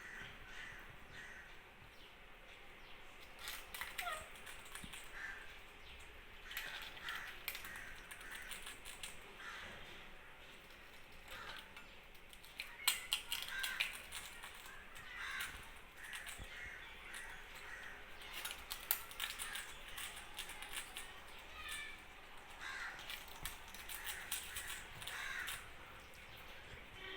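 Parrots giving short, scattered squawks and calls, mixed with sharp clicks and taps.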